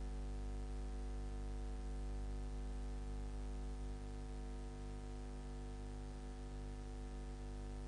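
A steady hum with many overtones, with no speech or other events over it.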